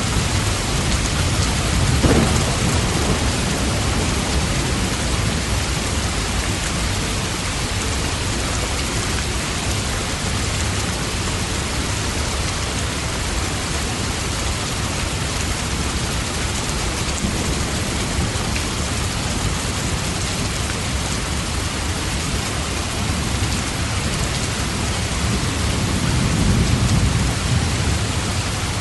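Steady rain falling, with low rumbles of thunder swelling about two seconds in and again near the end.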